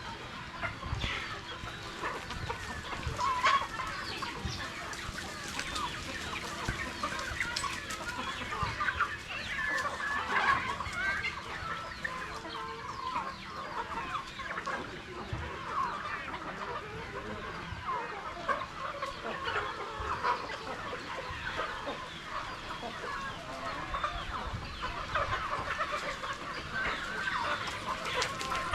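A flock of Rhode Island Red chickens clucking continuously, many short overlapping calls at once.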